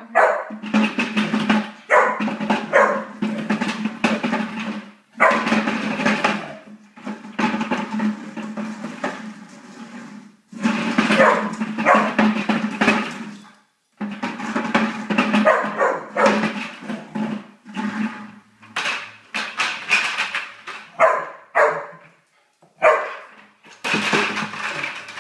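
Black Labrador retriever puppy barking in repeated bouts a few seconds long, while a plastic bucket knocks and scrapes over the hard floor.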